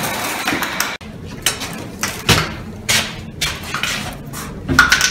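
Handling noises from a plastic toilet cistern being picked up and moved: irregular light knocks of the hollow plastic tank, with rustling of plastic wrapping.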